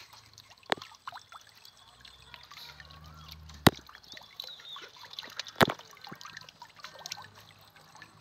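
Water trickling and dripping off a raised fishing lift net as it drains. Three sharp clicks stand out above the trickle, about a second in, near the middle, and a couple of seconds later.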